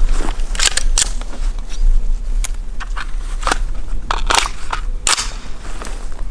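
Irregular clicks and knocks of the AR-15 and gear being handled, over a low rumble.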